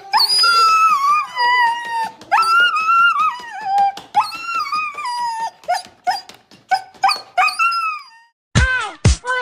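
A husky whining and yipping in a run of high cries, most falling in pitch, one after another for about eight seconds. Near the end, after a short gap, a different sound with a steady, even beat begins.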